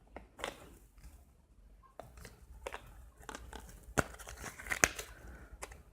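Packaging being handled and opened: scattered crinkling, tearing and small clicks in short, irregular bursts, busiest near the end.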